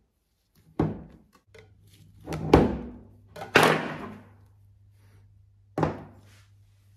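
Clear plastic dough tub and a plastic spatula handled on a countertop: four dull thunks and knocks, the last about six seconds in as the tub is turned over and set down upside down. A faint low hum runs behind them.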